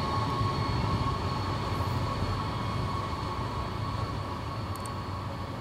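NTV Italo AGV 575 high-speed electric train pulling away, its low rumble and a steady high electric whine fading as it recedes.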